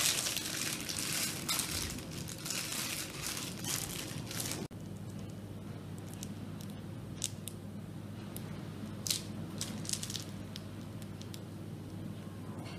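Plastic piping bag crinkling as it is handled and squeezed to pipe choux pastry dough. The rustling is dense for the first four seconds or so, then thins to a few scattered crinkles over a low steady hum.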